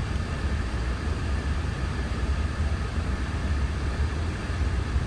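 Steady flight-deck noise of an Airbus A340-600 in flight: a constant low rumble with an even hiss of airflow and ventilation, unchanging throughout.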